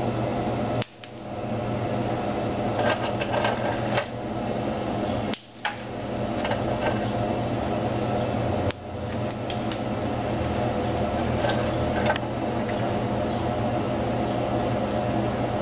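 Steady mechanical hum, broken three times by a sudden brief drop in level that recovers over about a second.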